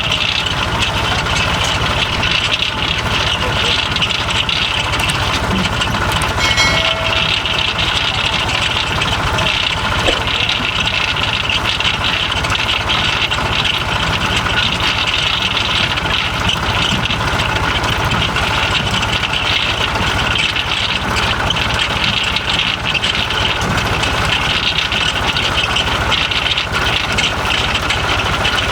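Tractor engine running steadily while working a potato harvest, with the harvester's machinery adding a constant high rattling hiss.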